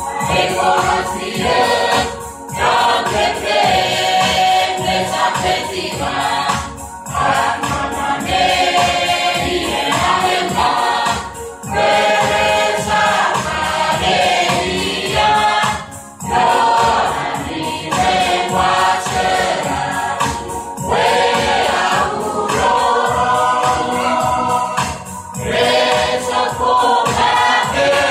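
Mixed choir of men, women and children singing a Chuukese Christmas song together, in phrases of about four to five seconds with brief breaks for breath between them.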